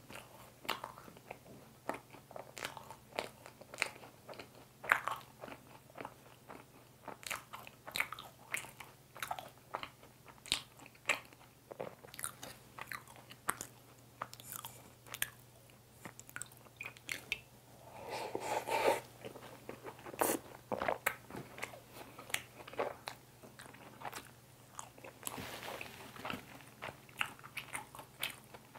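Close-miked chewing of a fresh-cream mocha bun: wet mouth clicks and smacking, irregular and several per second, with a louder stretch a little past halfway.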